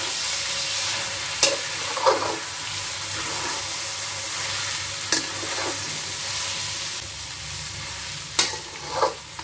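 Gobindobhog rice and cauliflower frying in ghee and oil in a large metal kadai, with a steady sizzle while a metal spatula stirs and scrapes through it. The spatula clinks against the pan three times.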